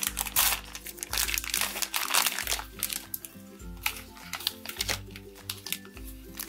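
A printed plastic blind bag torn open and crinkled in the hands, the crackling densest in the first two or three seconds. Background music with a steady pulsing bass runs underneath.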